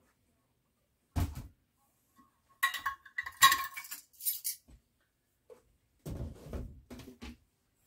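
Metal measuring cup and spoons handled and clinking against dishes: a dull knock about a second in, a run of ringing metal clinks around the middle, then softer knocks near the end.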